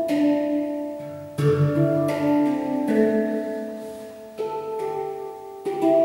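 Handpan (hang drum) played with the hands: a slow melody of about six single notes, each ringing on and fading under the next.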